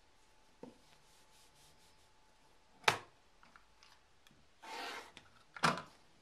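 A rigid quilting ruler is set down on a cutting mat with a sharp clack. After that comes a short rasping stroke as a rotary cutter slices through the quilt block's batting and backing along the ruler's edge, and then a second clack as the cutter is put down on the mat.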